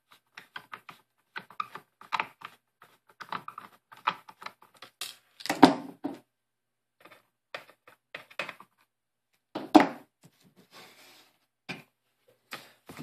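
Small screwdriver working screws out of a laptop's plastic underside: irregular light clicks and scrapes, with two louder knocks about halfway and three-quarters of the way through.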